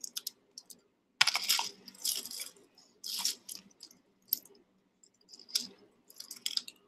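Costume jewelry clinking and rattling in several short bursts as a heap of metal chains, bangles and beads is sorted by hand.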